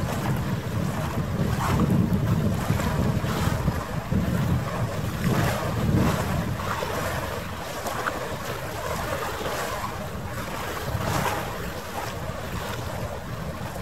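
Wind buffeting the microphone in uneven gusts, a rough low rumble, over the wash of harbour water.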